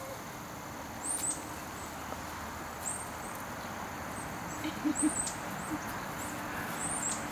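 A small bird chirping: short, very high, sharp notes in pairs about every two seconds, over a steady background hiss.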